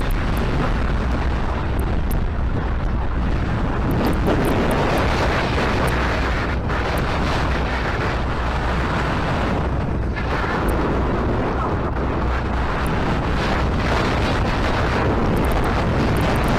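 Wind buffeting the microphone on the deck of a moving boat: a steady rushing noise with a heavy low rumble.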